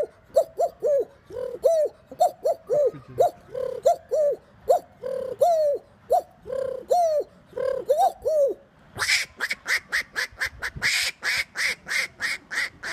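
A man imitating bird calls with his voice: a run of short calls that rise and fall in pitch, about two a second, then from about nine seconds in a faster run of sharper, harsher calls.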